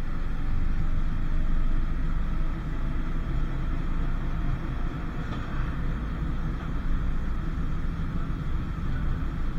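Vintage tram running along the track, with a steady rumble of motor and wheels on the rails.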